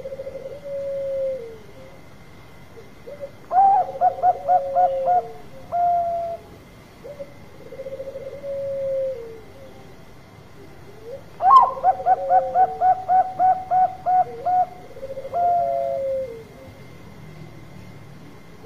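Zebra dove (perkutut) cooing: lower, drawn-out trilling coos that fall off at the end, and twice, about three and a half and eleven and a half seconds in, a phrase of quick staccato coos, the second phrase longer, with about a dozen notes.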